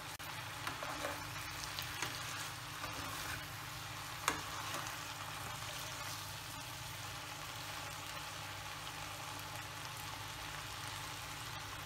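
Strips of vegetables sizzling in a nonstick pan as a wooden spatula stirs and turns them, with small scrapes and clicks and one sharper knock about four seconds in.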